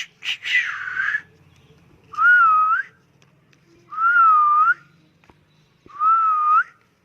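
A parrot whistling the same wavering phrase three times, each under a second long and about two seconds apart. A few clicks and a short harsh call come just before, near the start.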